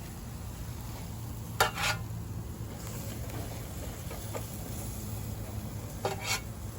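Burgers sizzling on a charcoal grill, with two short clatters, one about a second and a half in and one near the end.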